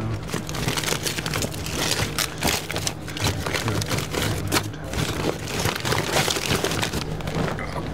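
Plastic food bags crinkling and rustling as a hand rummages through a packed insulated cooler bag, a dense run of irregular crackles and clicks over a steady low hum.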